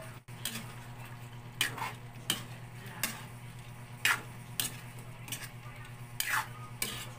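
Metal ladle scraping and clinking against an aluminium wok as a chunky stew of chicken, potatoes and vegetables in tomato sauce is stirred, about ten irregular strokes over a steady soft sizzle of the simmering pan.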